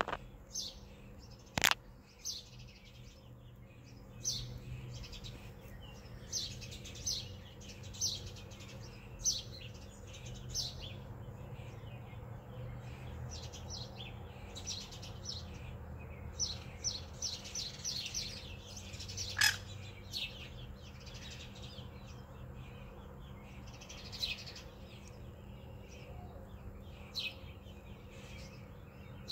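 A flock of sparrows chirping, a steady stream of short chirps, with two sharper, louder chirps about two seconds in and again past the middle.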